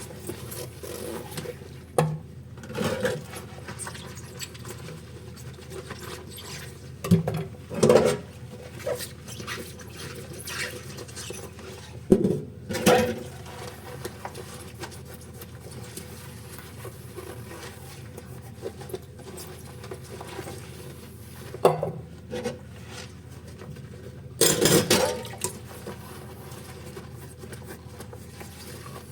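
Dishes and cutlery clinking and scraping against each other during hand-washing at a sink. Short bursts of clatter come every few seconds, the longest near the end, over a steady low hiss.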